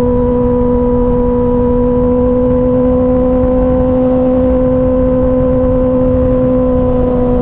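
2024 Kawasaki ZX-6R's 636 cc inline-four engine and exhaust running at a steady, unchanging pitch while cruising on the highway, with low wind rush.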